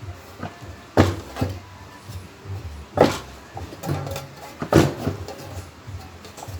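Sharp plastic knocks and clacks, four of them spaced over a few seconds, from parts of an electric fan being handled and fitted together during reassembly.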